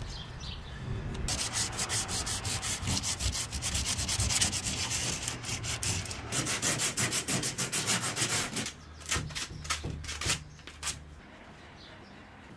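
Rapid back-and-forth hand scrubbing with an abrasive on the hull of a Novacraft Prospector canoe, scuffing the surface where D-ring pads are to be glued. It starts about a second in and thins to a few single strokes before stopping near the end.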